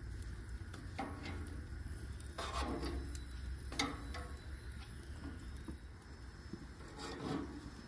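Metal tongs clicking and scraping against the grill grates as flour tortillas are turned, a few scattered clicks with the sharpest about four seconds in, over a low steady rumble.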